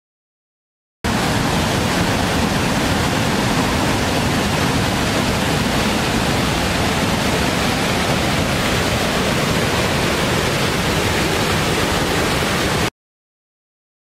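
Waterfall, a steady rush of falling water. It starts abruptly about a second in and cuts off suddenly near the end.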